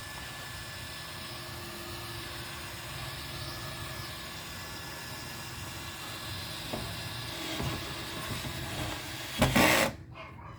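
Steady mechanical hum like a running motor or engine, with a low rumble under it. Near the end there is a loud, brief rush of noise, and then the hum stops.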